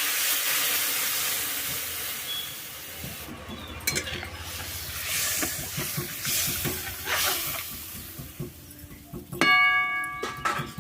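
Spice pastes and mustard paste frying in hot oil in a pan. The sizzle is strong at first, then settles from about three seconds in into an uneven, fainter sizzle with clicks of a spoon being stirred against the pan. Near the end a short, steady high tone sounds once.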